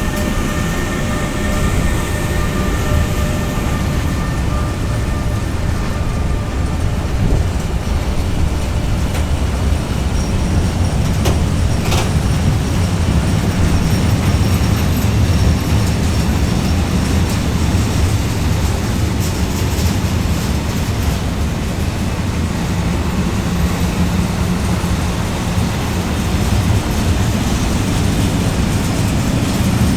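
Freight train of tank wagons rolling past: a steady, heavy rumble of wheels on rail. A few thin steady tones fade out in the first few seconds, and a single sharp click comes about twelve seconds in.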